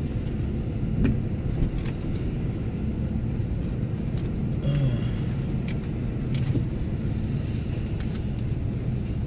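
Car engine and road noise heard from inside the cabin as the vehicle rolls slowly, a steady low drone. A few light clicks and rattles sound now and then.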